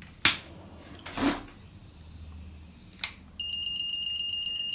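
A couple of sharp clicks and a short rustle, then, about three and a half seconds in, the Mastek CGD02A combustible gas detector's alarm starts: a steady high-pitched tone that keeps sounding. The alarm comes as the display reading climbs, the sign that its sensor is picking up combustible gas.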